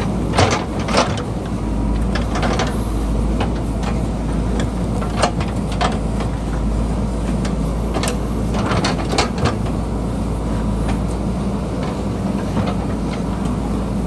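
JCB 3DX backhoe loader's diesel engine running steadily while the bucket scrapes soil down an earth cut face, with scattered sharp knocks and clanks as the bucket teeth strike stones, several in a cluster about a second in and again around eight to nine seconds.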